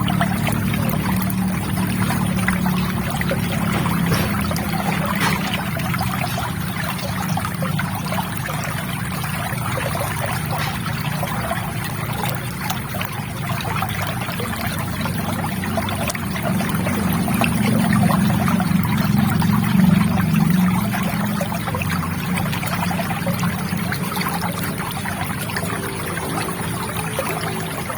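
River water trickling and babbling steadily, swelling slightly about two-thirds of the way through.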